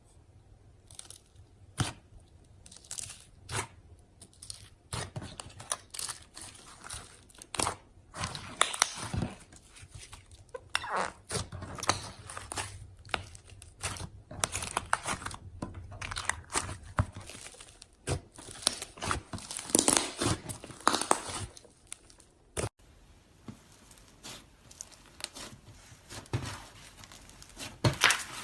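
Slime being squeezed and pressed by hand, giving irregular crackling, popping snaps in dense clusters. A sharp snap comes near the three-quarter mark, and the handling goes quieter after it.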